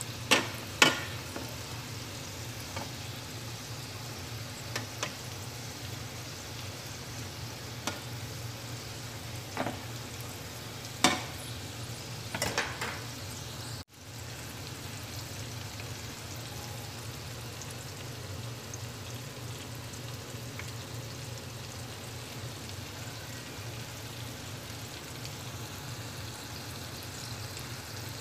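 Flour-coated chicken pieces deep-frying in hot oil in an aluminium wok: a steady sizzle, with a handful of sharp pops during the first half.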